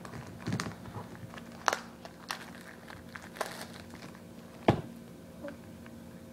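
Clear plastic shrink wrap crinkling and tearing in the hands as it is pulled off a small plastic toy basket, in irregular crackles, with one sharp click a little before the end.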